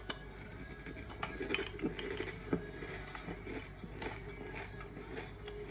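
Metal spoon clinking and scraping against a ceramic bowl while stirring and scooping cereal in milk: a scatter of light, irregular clicks.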